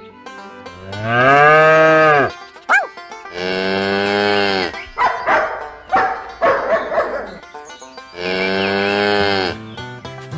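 Cattle mooing: three long moos that drop in pitch as they end, with shorter calls between the second and third, over faint background music.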